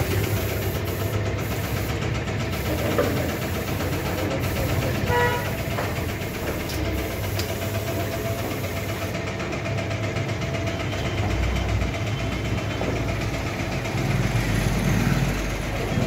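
Steady running noise of machinery with a low hum. A brief higher tone comes about five seconds in.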